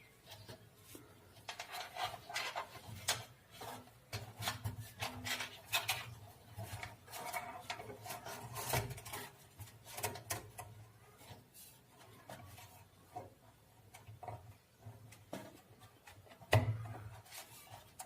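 Hands working with amplifier parts while a wire connector is plugged onto the circuit board: irregular rubbing and light clicks, with one sharper knock near the end.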